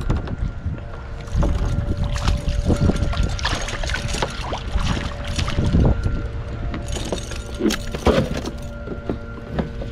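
A sheepshead splashing at the water's surface as it is lifted beside a plastic kayak, with many knocks and clatters from the fish and tackle being handled against the hull.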